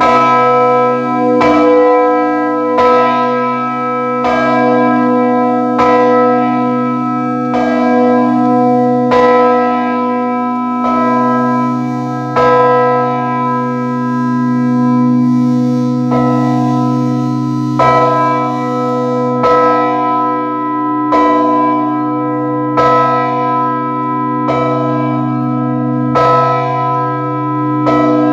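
A large 42 cwt tenor church bell being swung, its clapper striking about every one and a half seconds. Each stroke rings on over a deep, steady hum, and the strokes vary a little in strength.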